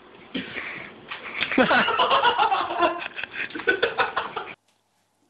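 People laughing and talking excitedly, cutting off abruptly near the end.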